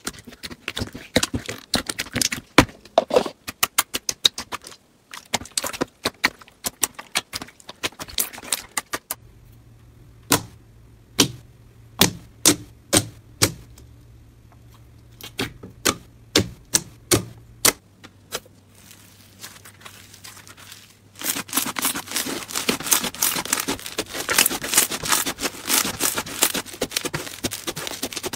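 Slime being pressed and squished by hand, making sharp clicks and pops, with a denser crackling run in the last third.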